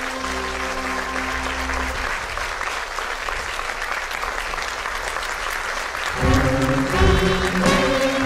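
Theatre audience applauding. A held final chord from the musicians dies away about two seconds in, leaving the clapping alone, and loud music starts up again about six seconds in.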